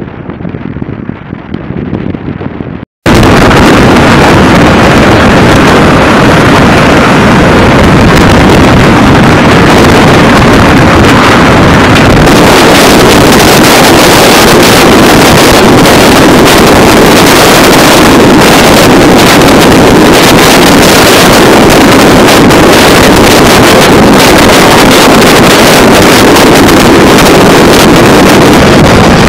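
Wind rushing on the microphone for the first three seconds, then a sudden cut to a loud, unbroken roar of flight-deck noise on an aircraft carrier, loud enough to overload the recording.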